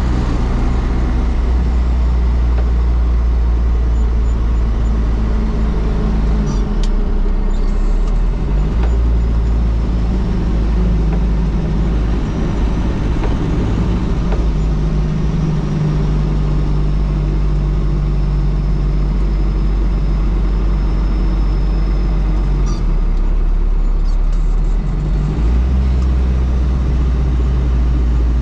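1987 Toyota Land Cruiser BJ73's 13B-T four-cylinder turbodiesel running under way. Its note steps up and down several times as the revs change.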